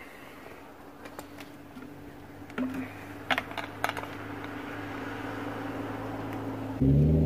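A few sharp clicks and taps from a plastic fuel bottle and a nitro RC car's fuel-tank cap during refuelling with glow fuel, over a steady hum that slowly grows louder. Near the end a much louder, deeper droning sound starts suddenly.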